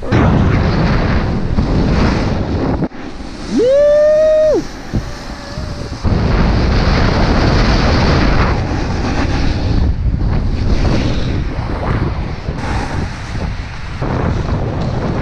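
Wind rushing over a mouth-mounted action camera while a snowboard slides and scrapes down groomed snow at speed, a steady loud noise throughout. About four seconds in, a short held yell rises and holds for about a second.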